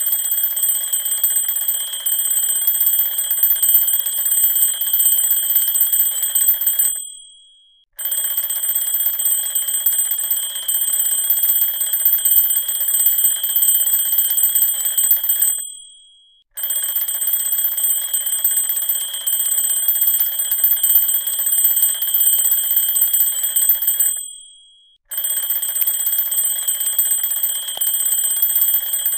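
Alarm clock ringing in bursts of about seven seconds, with a gap of about a second between them. Each burst fades away as it stops, and the ringing cuts out three times.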